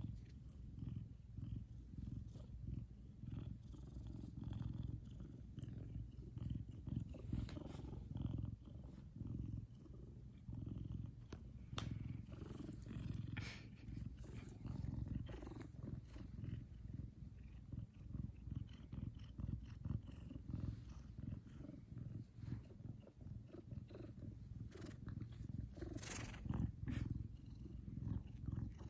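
Savannah cat purring continuously, a low pulsing rumble close to the microphone, with a few faint brief noises around the middle and near the end.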